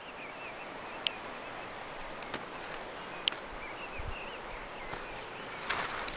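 Steady rush of a mountain river, with faint high chirping over it and a few small clicks. Crunching steps in snow begin near the end.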